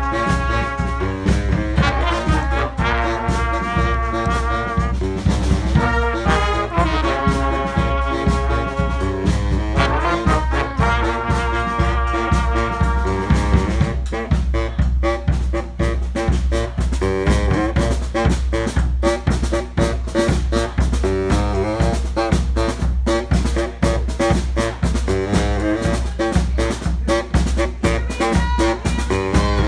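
Street brass band playing a New Orleans-style tune: brass horns over drums and a steady low bass line. The horns hold long chords through the first half, then give way to a busier, more drum-driven passage.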